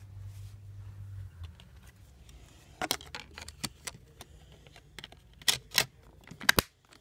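Plastic clicks and light knocks of a BlackBerry 8700g being handled, its back cover fingered, with several sharp clicks in the second half.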